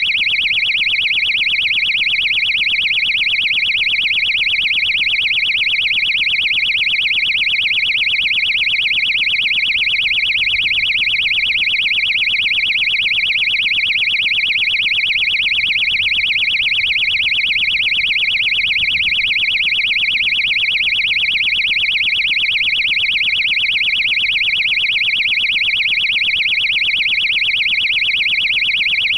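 High-pitched electronic buzzer on board a landed amateur rocket, beeping rapidly and without a break, as a recovery locator beeper does to guide the team to the rocket.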